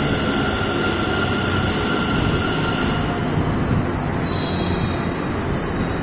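Delhi Metro Magenta Line train moving alongside the platform: a steady rumble, with a high squeal of several tones setting in about four seconds in.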